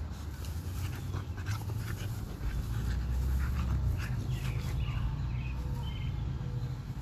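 A puppy panting and rustling the grass as it rolls and squirms on its back, with irregular scratchy rustles that are busiest in the first half.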